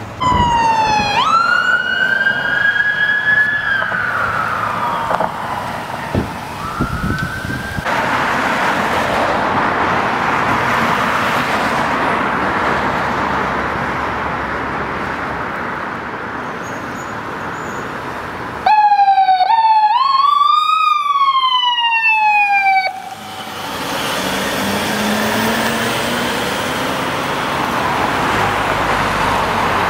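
A sheriff's Chevrolet Tahoe's electronic siren sweeping up and down for the first several seconds. Then steady road and vehicle noise. An ambulance siren gives a few quick rising and falling sweeps about two-thirds of the way through and cuts off sharply.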